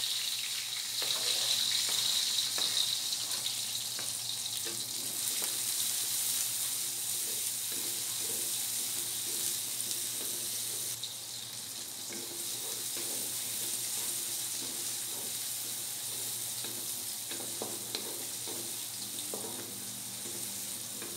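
Chopped shallots, garlic and chilies sizzling in hot oil in a wok as they sauté, with a steady hiss, stirred now and then with a wooden spatula.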